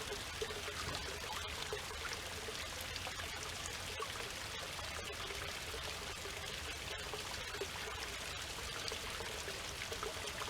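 A small waterfall: a thin flow of water running down a granite rock face and splashing steadily into a pool.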